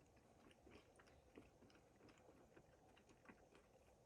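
Near silence with faint, scattered soft clicks of a person chewing a marshmallow Peep.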